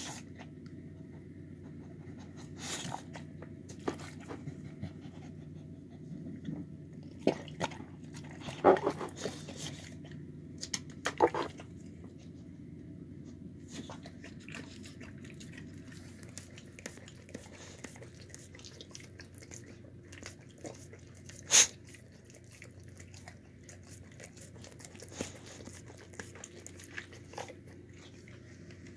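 A dog licking and chewing the last scraps from its food bowl: scattered, irregular clicks and knocks, the sharpest a little past two-thirds of the way through, over a steady low hum.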